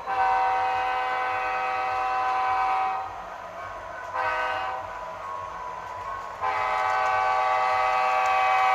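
HO-scale SD80MAC model locomotive's Tsunami 2 DCC sound decoder sounding its multi-chime diesel horn through the model's speaker: a long blast, a short one, then another long one. The decoder's diesel engine sound runs quieter between blasts.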